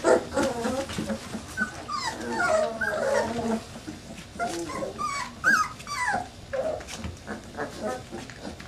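Young puppies whimpering and whining, many short rising and falling cries overlapping one another.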